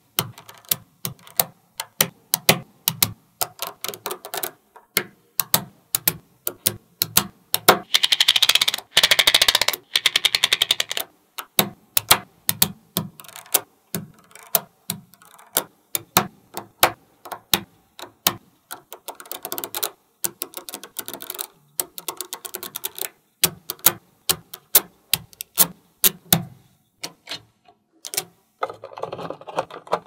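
Small magnetic balls clicking and snapping together as strips of them are laid and pressed onto a stack of magnet balls: a run of sharp, irregular clicks, with a dense, rapid rattle of clicks about eight to eleven seconds in.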